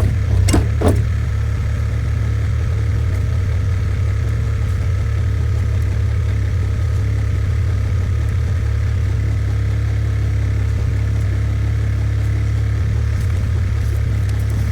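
New Holland compact skid steer's engine running steadily at a constant speed, with two sharp knocks in the first second.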